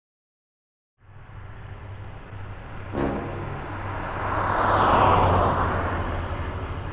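Small car, a Dacia Logan, approaching and driving past at road level: engine and tyre noise starting about a second in, swelling to a peak about five seconds in, then falling away as its pitch drops.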